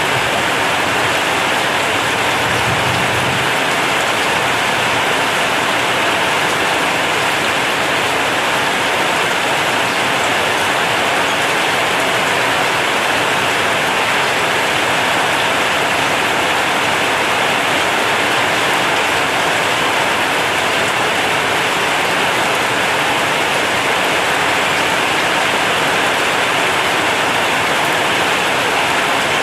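Heavy rain falling steadily on corrugated zinc roofing, a dense, even hiss. A low rumble dies away in the first few seconds.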